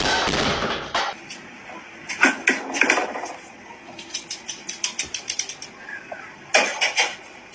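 A large floor vase toppling off its pedestal and crashing down, the crash fading by about a second in. Then a run of irregular light clicks and rattles, with a louder clatter near the end.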